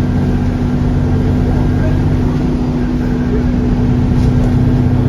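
Alexander Dennis Enviro400 Trident double-decker bus, its diesel engine running at a steady pitch, getting slightly louder about four seconds in.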